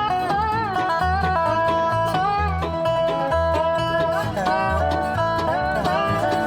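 Bluegrass-style background music with plucked banjo and guitar over a steady low bass beat.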